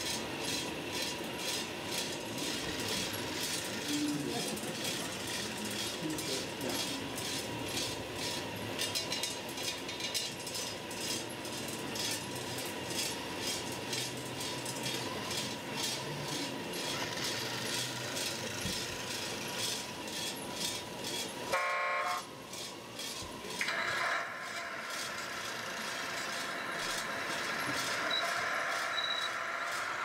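Radio-controlled model trucks and construction machines running, with steady mechanical motor noise. About two-thirds of the way in, a sound-module horn toots briefly, and in the last few seconds a motor whine rises in pitch.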